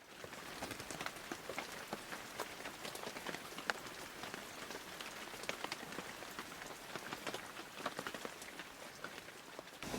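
Rain falling steadily, a dense patter of many small drops with scattered sharper ticks.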